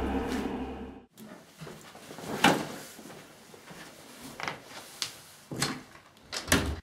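A loud, steady low drone cuts off about a second in. Then come a few separate knocks and clatters of a door being handled and footsteps in a small room, the loudest about two and a half seconds in, with more near the end as a door is pushed open.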